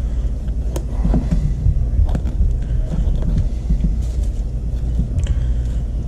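A steady low rumble, with scattered light clicks and taps from a fillet knife and gloved hands working a fish carcass on a cutting board.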